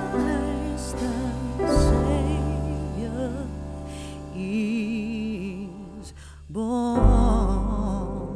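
Background music: a slow melody in long, wavering notes with vibrato over sustained low notes, dipping briefly near the end and picking up again.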